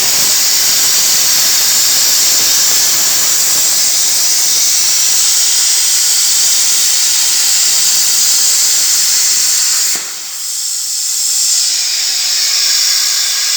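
CNC plasma cutting torch cutting sheet metal, a loud steady hiss. About ten seconds in the hiss dips and thins to a higher, lighter rush.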